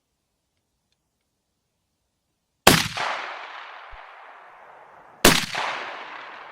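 Two shotgun shots from a Beydora BDR-90, the first nearly three seconds in and the second about two and a half seconds later. Each is followed by a long echo that dies away.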